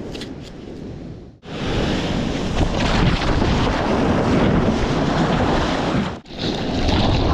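Ocean surf breaking, with wind buffeting the microphone. The sound cuts off abruptly about one and a half seconds in, then comes back louder, and breaks again briefly near the end.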